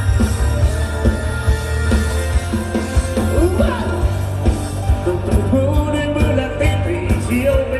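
Amplified live band playing rock-style music with a steady drum beat and heavy bass, and a voice singing.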